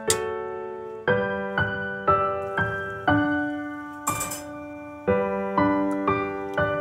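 Background piano music: chords and single notes struck about once or twice a second, each ringing and fading. A brief hiss cuts across it about four seconds in.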